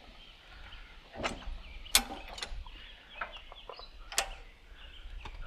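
Scattered sharp clicks and knocks, about four loud ones at irregular times, from jacking up a tractor loader frame, with faint bird chirping in the background.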